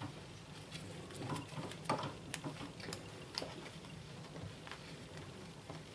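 Microfibre cloth wiping a glass gas hob, with soft rubbing and scattered light clicks and taps as the hand and cloth knock against the glass and burner parts.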